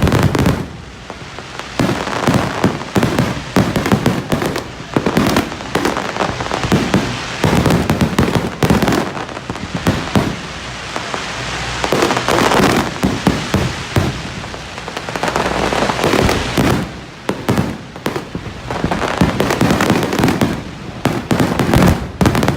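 Aerial fireworks display: a dense, continuous barrage of shell bursts and crackling, with bangs following each other rapidly and hardly a pause.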